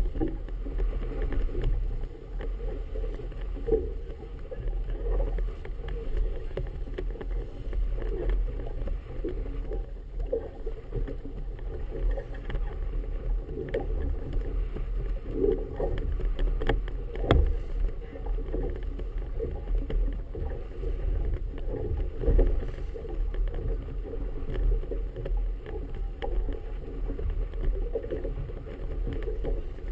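Choppy harbour water slapping and sloshing against a small boat's hull over a steady low rumble, with a few sharper knocks and splashes at irregular moments.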